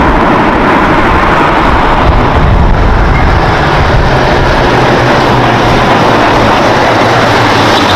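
Loud, steady vehicle engine running with a low rumble under dense noise, cutting in and out abruptly like an inserted sound effect.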